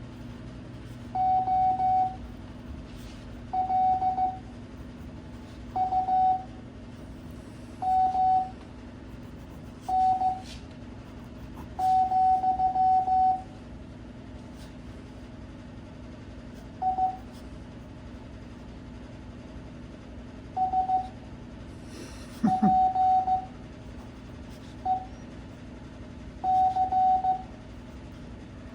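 Morse code (CW) practice audio at 5 words per minute: a single steady beep keyed into dots and dashes, one letter every second or two with pauses between, over a faint steady hum.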